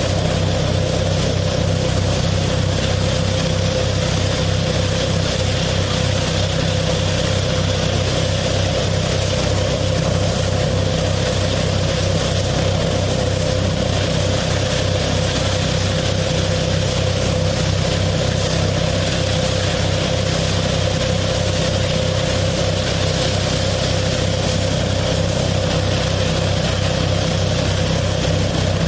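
KF-601 tractor-driven nut harvesting machine running at a steady speed: a constant, unchanging machine drone with a steady hum.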